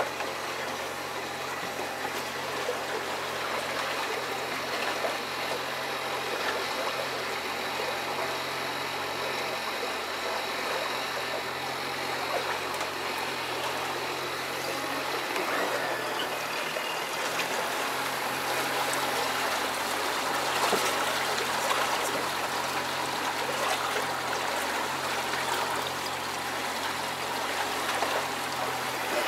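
Pontoon boat under way: its outboard motor running with a steady low hum, under a constant rush and trickle of water along the pontoons.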